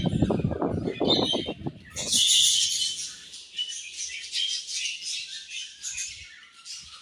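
A flock of budgerigars chirping and chattering in quick high notes. In the first two seconds a rapid fluttering, likely wings flapping, is heard under the chirps.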